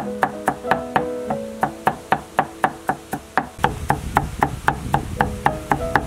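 Cleaver chopping garlic on a wooden chopping block in quick, even strikes, about four to five a second, with plucked-guitar background music.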